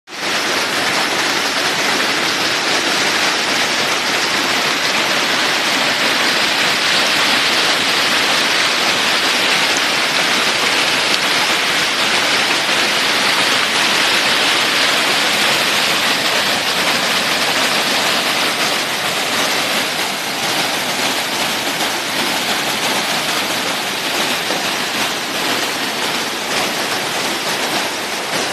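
Steady rush of falling or flowing water, easing a little about two-thirds of the way through.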